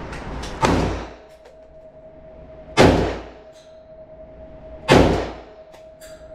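Three gunshots about two seconds apart, each a sharp crack with a short decaying tail; a faint steady tone holds between them.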